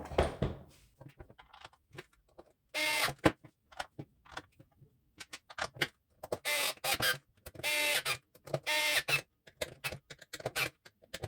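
Four short whirs of a small electric screwdriver driving screws into the lawn mower's plastic housing, among sharp clicks and knocks of plastic parts being handled and fitted.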